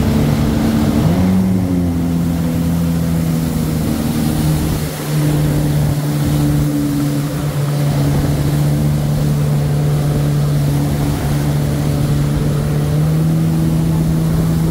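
Jet ski engine running at speed, heard from aboard, a steady drone over the hiss of water; its pitch steps up about a second in and again near the end as the throttle opens.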